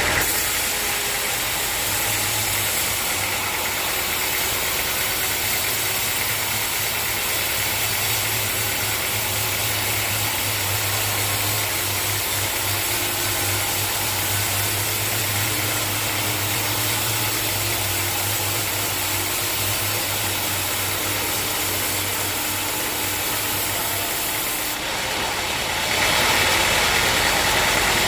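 Sawmill machinery running steadily with an engine-like hum, getting louder about two seconds before the end.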